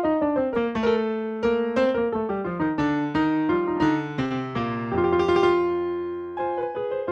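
Piano playing a postlude at the close of the service: a slow melody of struck notes over a bass line stepping downward, with a chord held for over a second about five seconds in.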